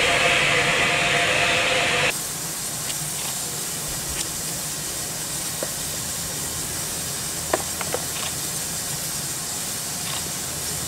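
Steam hissing steadily from a standing steam locomotive, with a few faint clicks and knocks. For the first two seconds a louder hum with steady tones runs over it, then cuts off abruptly.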